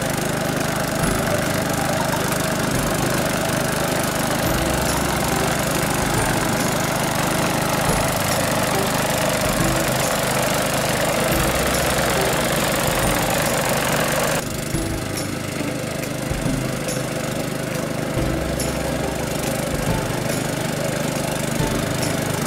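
Walk-behind sickle bar mower's small petrol engine running steadily under load as it mows tall grass. About 14 seconds in, the sound suddenly becomes duller and a little quieter.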